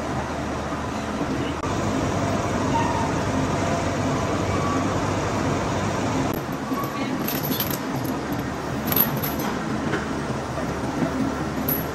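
Heavy machine-shop noise: a steady clattering din of running machinery, with a few sharp metallic clinks in the second half.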